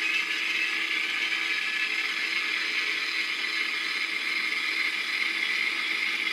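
Model excavator running, a steady mechanical whir of small motors and gears.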